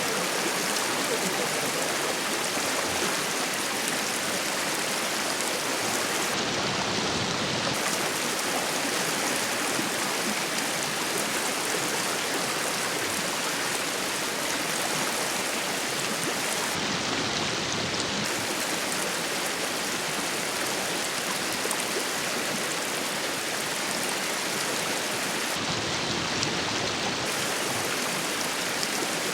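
Fast-flowing mountain stream rushing steadily over its bed. The hiss turns briefly duller three times.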